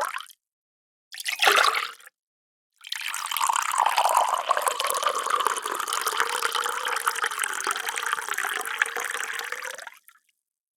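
Water being poured: the tail end of one pour, a short pour of about a second, then a steady pour lasting about seven seconds that stops near the end.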